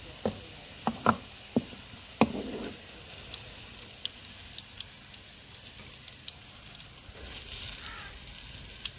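Wooden ladle knocking and scraping in an aluminium karahi as fried onions are scooped out, with hot oil sizzling and crackling in the pan. Five sharp knocks come in the first couple of seconds, then only a soft crackle of frying.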